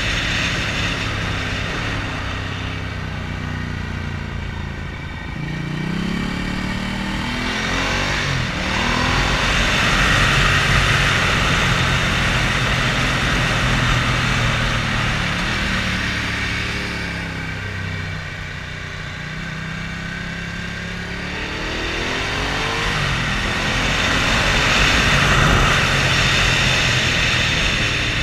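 Motorcycle engine heard from a helmet-mounted camera while riding, twice rising in pitch as the rider accelerates out of a bend, about five seconds in and again past twenty. Wind rushes over the helmet, swelling as speed builds.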